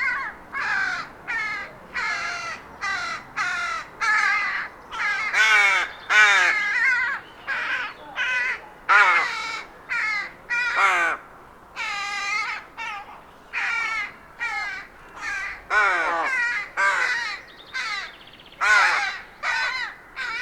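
Rook cawing: a steady run of short, harsh caws, one every half second to a second, several sliding down in pitch, some louder than others.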